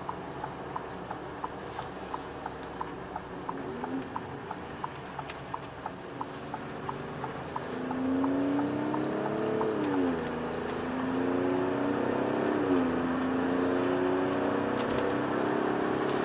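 Turn-signal indicator ticking in the cabin, about three ticks a second, for the first six seconds. Then the Stelvio Quadrifoglio's twin-turbo V6 pulls away, its pitch rising and dropping twice as the gearbox upshifts.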